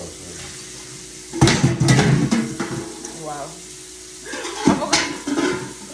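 Cooking clatter of pots and utensils: a burst of knocks and scrapes about a second and a half in and another near the end, over a faint steady hiss and a low hum.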